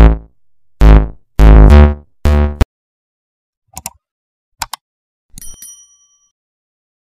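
A few loud, bass-heavy music hits, then two quick pairs of button-click sound effects, then a single notification-bell ding that rings briefly and fades.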